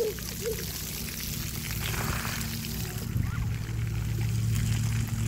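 Splash-pad water running, a steady rushing over a low hum that grows louder about three seconds in. A toddler makes two short vocal sounds at the start.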